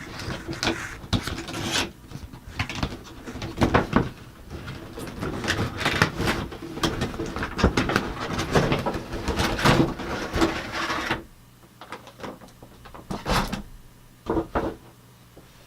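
Cardboard shipping box being cut open and its packaging handled: a busy run of scraping, rustling and knocks that thins out after about eleven seconds to a few sharp clicks.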